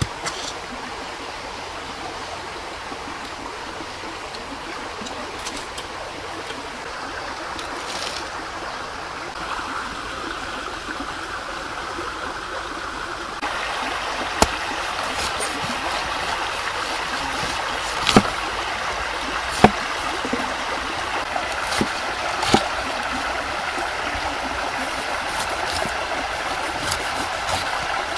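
Steady rushing of running water, a little louder from about halfway through, with a few sharp knocks in the second half as a knife cuts the skin off a pineapple on a wooden log.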